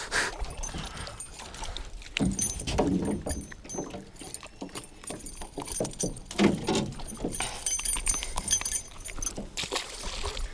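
Metal treble hooks and split rings of a topwater lure jingling and clicking as the lure is handled and freed from a small fish, with irregular knocks and rustles of gear in the boat.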